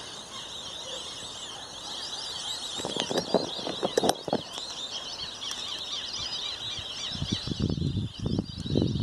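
A large flock of birds calling overhead: a dense, continuous chatter of many short, high chirps. Low bursts of noise break in about three seconds in and again from about seven seconds on.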